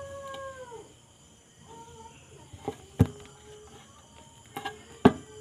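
An animal's long, steady call that falls away under a second in, followed by a few sharp clicks, the loudest about three seconds and five seconds in.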